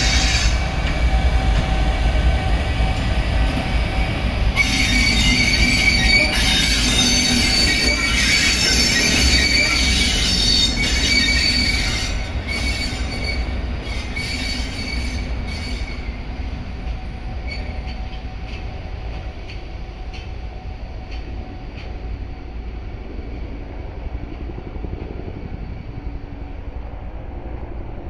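EF510 electric locomotive running light on its own, loud as it passes close, with a rumble of wheels on rails and a high, steady whine. After about twelve seconds it drops in level and keeps fading as it moves away.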